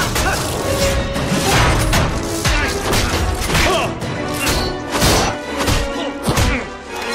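Superhero fight-scene soundtrack: a dramatic film score under a rapid series of hits, thuds and crashes.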